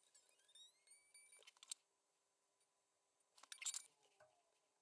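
Quiet handling of steel guitar strings and tools at the nut: a faint squeaky tone rising in pitch in the first second, then a few light ticks and a quick cluster of metallic clinks about three and a half seconds in.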